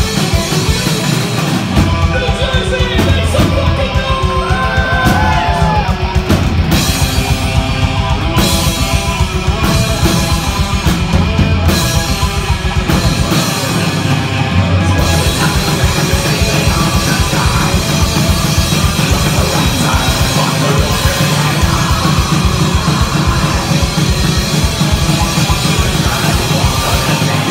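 Heavy metal band playing live and loud: electric guitars over rapid, steady drumming on a drum kit, with a vocalist singing into a microphone.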